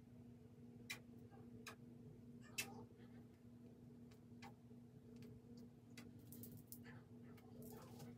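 Near silence: a low steady hum of room tone, with faint scattered clicks and taps at irregular intervals.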